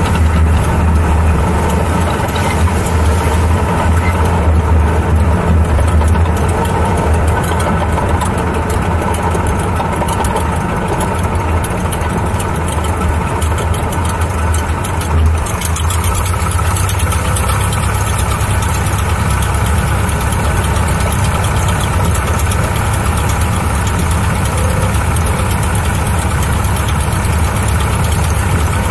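Aeronca Champ's light-aircraft piston engine and propeller running steadily in low flight. Air rushing over the wing-strut-mounted camera adds a hiss that grows about halfway through.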